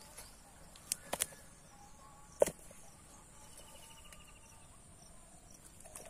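A few short, sharp knocks over a faint outdoor background, the loudest about two and a half seconds in, with a faint rapid trill of short repeated notes a little past halfway.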